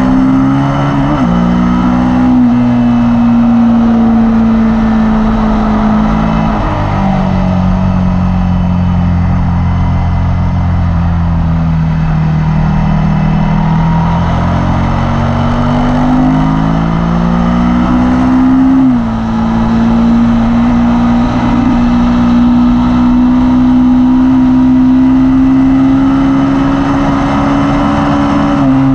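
Suzuki SV motorcycle's V-twin engine pulling hard under load, its note climbing slowly and dropping sharply with gear changes about a second in, near seven seconds and near nineteen seconds.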